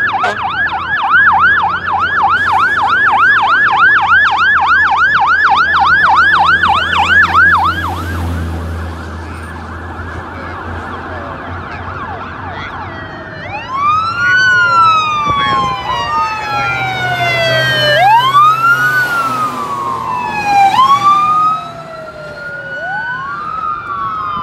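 Fire trucks' sirens: a fast yelp, about three sweeps a second, for the first eight seconds. Then a truck engine rumbles low for a few seconds, and from about halfway two sirens wail out of step in slow rising and falling sweeps.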